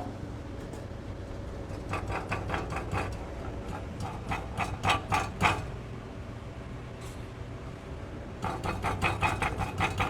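Catalytic converter rattling in three bursts of quick metallic clicks over a steady low hum. The rattle comes from inside the converter rather than its heat shield, the sign of a failed cat whose honeycomb has broken apart.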